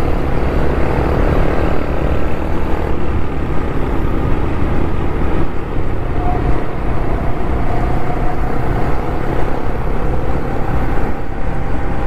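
Motorcycle on the move: a steady, loud rush of wind on the rider's microphone over the engine running, with a faint tone that rises slowly through the second half.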